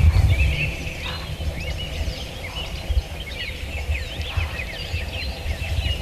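Birds calling and singing at dusk: many short overlapping chirps and whistles, over a low rumble on the microphone that eases about a second in.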